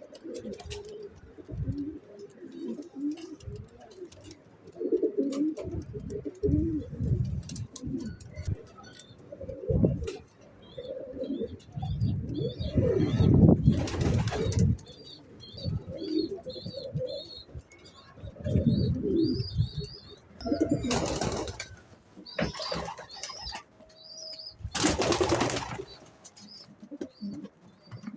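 Pigeons cooing over and over in low, pulsing calls, with small birds chirping higher up through the middle and latter part. Several short loud rushing noises break in, the loudest about a dozen seconds in and near the end.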